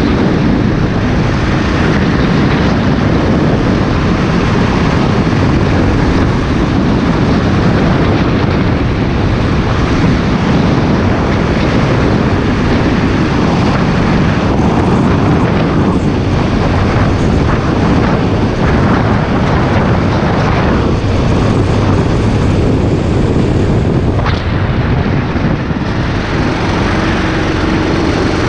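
Go-kart engine running hard at speed, heard from the seat with wind rushing over the microphone. The noise eases briefly about 24 seconds in, then comes back up.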